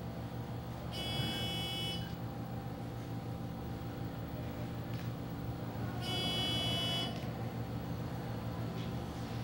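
An electronic buzzer sounds for about a second, twice, about five seconds apart, over a steady low electrical hum.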